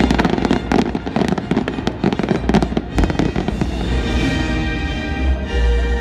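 Fireworks display going off in a rapid run of crackles and bangs, densest in the first half and thinning out after about three seconds, with music playing alongside.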